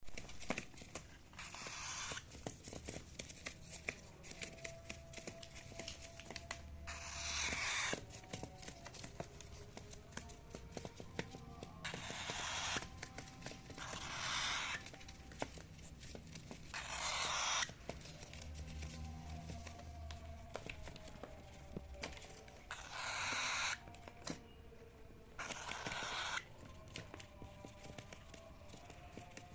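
Cockatiel calling: about seven harsh, raspy screeches of up to a second each, spaced irregularly, with scattered clicks and scratching between them.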